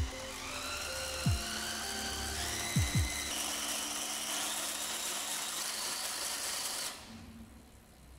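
DeWalt 20V cordless drill motor whining as it spins a bicycle's crank and chainrings, its pitch rising in steps over the first few seconds, then holding steady and cutting off suddenly about seven seconds in. Background music with deep booming beats plays underneath.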